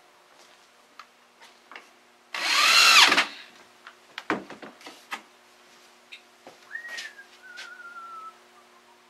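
Handheld power drill running in one short burst of about a second into a wooden slat, its pitch rising as it spins up and falling as it stops. Then scattered knocks and clatter of wood pieces and the drill handled on the workbench.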